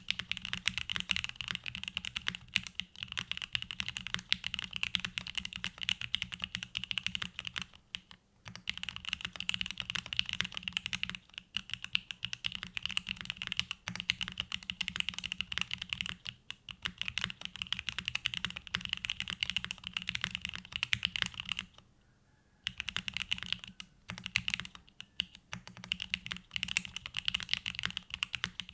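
Continuous typing on a gasket-mounted QK65 V2 mechanical keyboard with a carbon-fibre plate and plate foam, hand-lubed Gateron Box Pink switches and GMK Bento doubleshot ABS keycaps. Key presses run in a dense stream, with short breaks about 8 seconds in and again about 22 seconds in.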